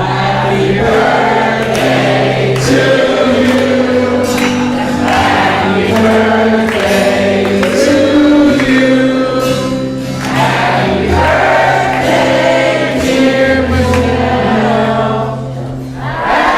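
Music: a choir singing held, sustained lines over steady low accompaniment, in phrases that dip briefly about every five to six seconds.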